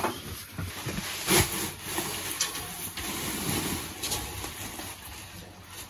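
Woven storage sacks being shifted and handled, rustling, with a few knocks; the loudest knock comes about a second and a half in.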